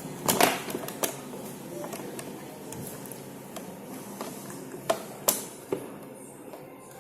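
Scattered sharp clicks and knocks of a hotel door lock's front panel being handled and fitted onto the door, the loudest few coming about five seconds in.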